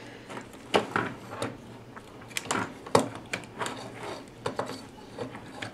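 Irregular clicks and taps of a printed circuit board and a choke being handled, as the choke's leads are seated through the board and the board is turned over to its solder side.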